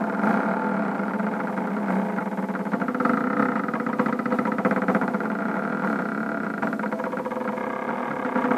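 Homemade belt-driven CNC machine built from photocopier parts running a job. Its stepper motors whine in shifting tones as the bed and tool head move back and forth.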